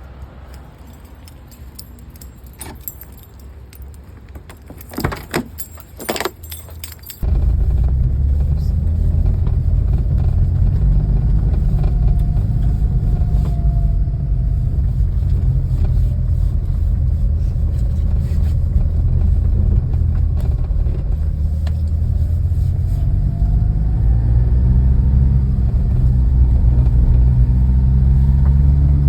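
Keys jangling and a few sharp clicks, then, suddenly about seven seconds in, the steady low rumble of a car on the move.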